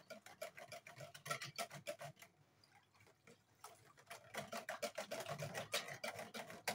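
Hibiscus juice being stirred with a long spoon in a plastic bucket, the spoon knocking lightly against the sides in quick ticks, several a second. The ticking pauses for about a second and a half midway, then starts again.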